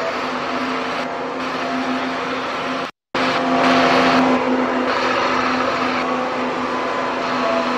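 Changlin 957 wheel loader's diesel engine running steadily as the loader drives across gravel. The sound cuts out for a split second about three seconds in, then comes back louder for about a second before settling.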